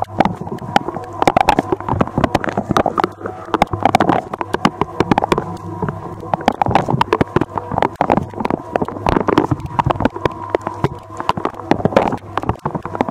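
Candy DUO 609 X dishwasher washing, heard from inside the tub: the wash pump runs with a steady hum while the spray arm's jets hit the camera and racks in a dense, irregular spatter of splashes and clicks.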